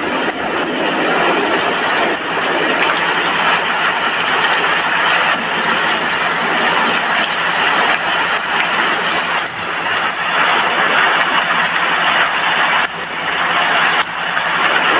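Steady rain falling, an even hiss of drops with a faint steady low hum underneath.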